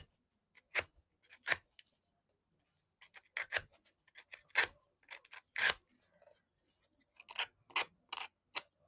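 Short scratchy scraping strokes of a small hand tool rubbing off the charred paper edges of a decoupaged wooden cutout. They come in irregular strokes, some in quick runs of several in a row.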